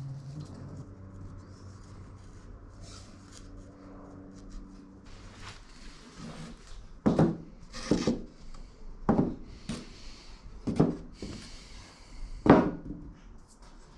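Rubbing and scraping on wood. After a faint low hum, five loud short strokes come a second or two apart in the second half.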